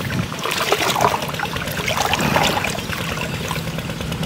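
Shallow water splashing and trickling around a split-bamboo plunge basket as it is worked in the water by hand, with many small irregular splashes.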